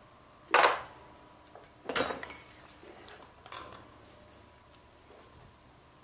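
Three sharp metallic clanks, about a second and a half apart, as steel hand tools and loosened parts knock against the front pulleys of a Rolls-Royce Meteor V12 engine being dismantled. The second clank is the loudest, and the third rings briefly with a high tone.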